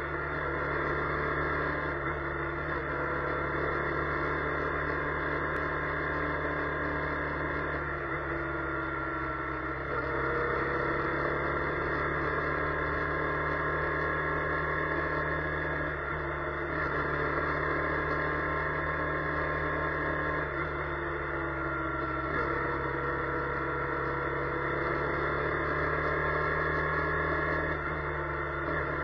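Steady car cabin noise while driving: low engine and road hum with faint tones that slowly glide in pitch, picked up by the dashcam's microphone.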